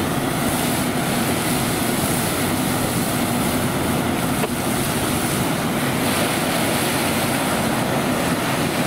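A fire hose stream rushes steadily onto a burnt-out car wreck, over the steady drone of a fire engine running its pump.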